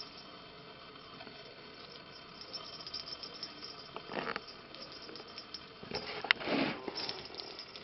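Kittens pouncing and batting at a wand toy: soft scuffles and light taps of paws on a laminate floor, with a brief rustle about four seconds in and a sharp click followed by a louder rustle near six and a half seconds.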